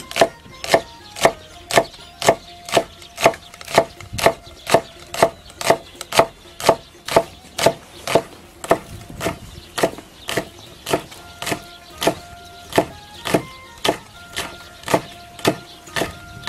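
Chinese cleaver chopping green and red chili peppers on a thick wooden chopping block, in a steady rhythm of about two knocks a second.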